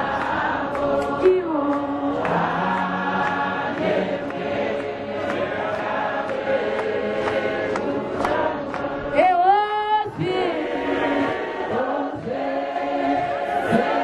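A choir singing a hymn in several parts. A single high, wavering voice rises above it briefly about nine seconds in.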